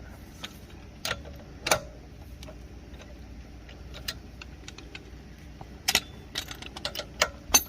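Metal hand tools and parts clinking and knocking during a brake job. There are a dozen or so sharp, separate clinks at irregular intervals, a few louder ones among quieter ticks.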